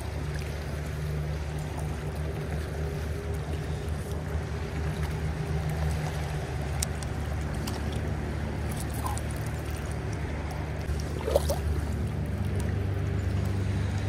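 Creek water running steadily over a stony bed, heard as an even rush with a low rumble underneath.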